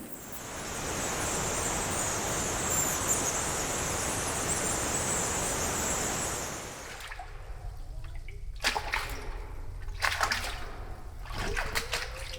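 Tropical cave ambience: a steady rush of water with high chirping above it. About seven seconds in it cuts to a quieter cave recording of irregular splashes and drips of water.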